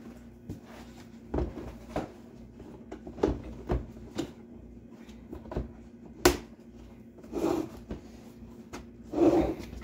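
Plastic parts of a three-tier cart knocking and clicking as the top piece is fitted onto the plastic support posts: a run of sharp knocks, the loudest about six seconds in, and two longer scraping sounds near the end.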